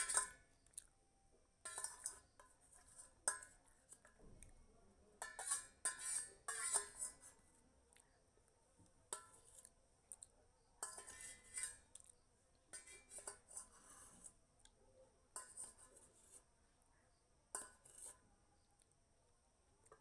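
A spoon clinking and scraping against a dish in short, irregular bursts every second or two while someone eats a semiya and puffed-rice mixture.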